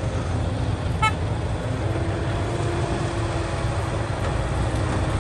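Heavy diesel machinery engine running steadily with a deep, even rumble, and a single short, sharp click about a second in.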